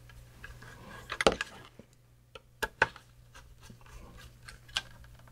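Small parts of a Tandon floppy drive being handled and fitted back into place: a handful of sharp clicks and taps, a cluster about a second in, two close together near the middle and one more near the end.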